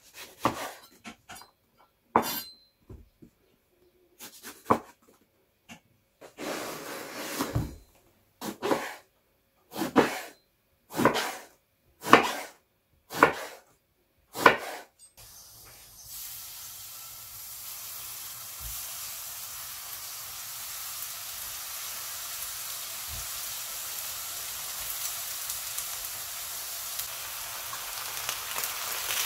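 A chef's knife slicing through an eggplant onto a wooden cutting board: a few light knocks, then a run of cuts about one a second. About halfway through, eggplant pieces start frying in oil in a frying pan, a steady sizzle that grows slowly louder.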